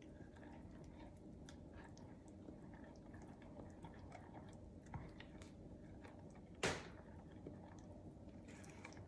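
Silicone spatula stirring cornmeal and almond-flour batter in a glass measuring cup: faint wet squishing and scraping with soft ticks, and one sharp click about two-thirds of the way through.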